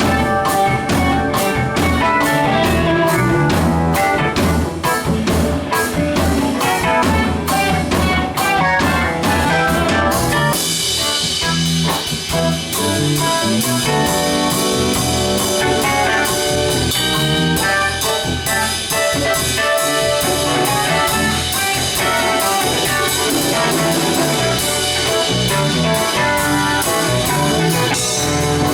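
Live band playing an instrumental jam: drum kit, guitar and bass together. About ten seconds in, the drumming shifts from sharp separate hits to a steady wash of cymbals over the groove.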